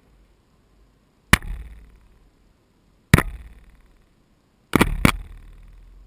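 A gull knocking at a GoPro's waterproof housing from point-blank range: four sharp knocks, the last two in quick succession, each dying away over about half a second.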